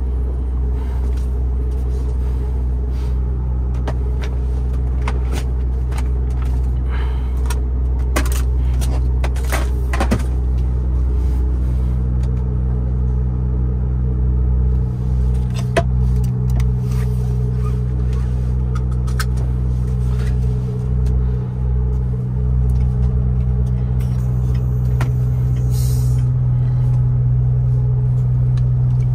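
MAN TGX 18.510 truck's diesel engine idling steadily, with scattered clicks and knocks over it. The engine hum grows a little stronger about twelve seconds in.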